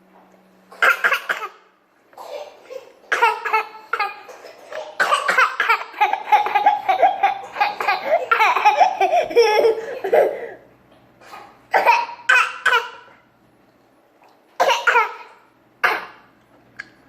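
Young children coughing and laughing: a boy imitating his little sister's cough. A short cough-like burst about a second in, a long stretch of giggling and laughter, then several short mock coughs near the end.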